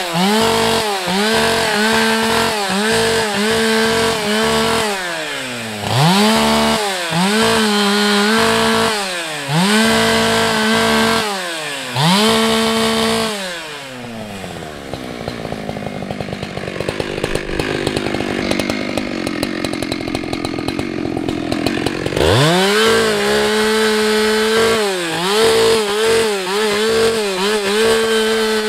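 Husqvarna 365 X-Torq two-stroke chainsaw limbing a felled pine: the engine revs up to full throttle and drops back again and again as each branch is cut. About halfway through it falls to a low idle for several seconds, then revs up and cuts on.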